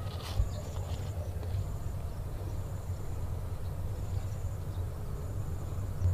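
Outdoor ambience: a steady low rumble with an insect trilling high and thin in short spells, and a couple of faint clicks near the start.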